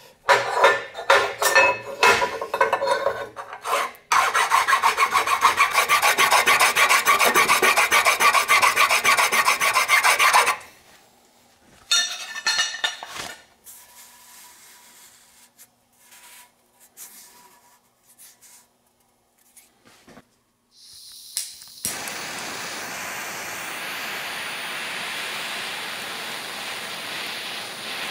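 Fine hand file rasping across a cast pot-metal part in fast strokes for about ten seconds, then a few more strokes. After a quiet gap, a small handheld gas torch starts a steady hiss as it is played over the fine filings, to test whether the metal is magnesium.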